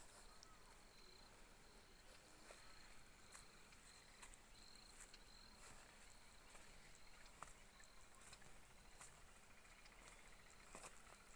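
Near silence: faint outdoor ambience with short, high, repeated chirps and a few soft clicks.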